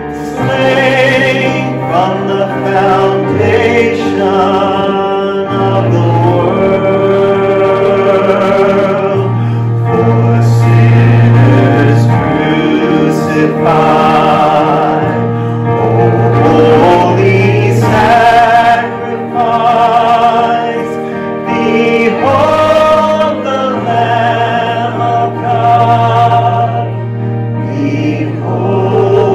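A man sings a slow gospel song solo, holding wavering notes with vibrato. Under the voice, a musical accompaniment of long held bass notes changes every few seconds.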